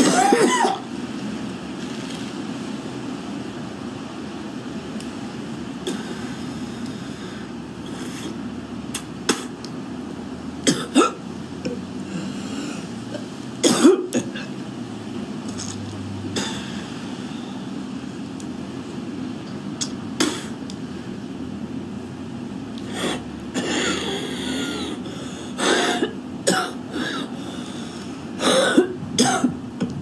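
A woman's harsh smoker's cough and throat clearing. A hard coughing fit right at the start, then scattered coughs through the middle and more bouts near the end.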